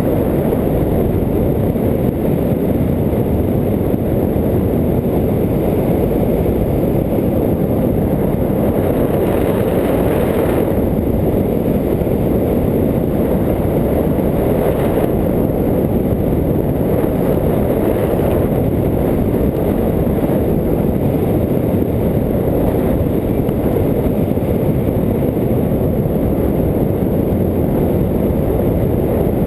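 Wind rushing over the microphone of a camera on a hang glider in flight: a steady, loud, deep rush of air with no engine note. It briefly turns hissier about ten seconds in and again around fifteen seconds in.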